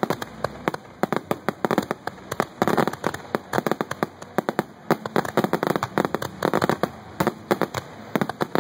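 Aerial fireworks crackling and popping in a rapid, irregular string of sharp cracks, with several denser bursts of crackle.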